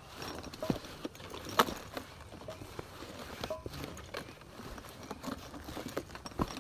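Footsteps of a hiker climbing a rocky mountain trail: irregular scuffs and knocks, with one sharper knock about a second and a half in.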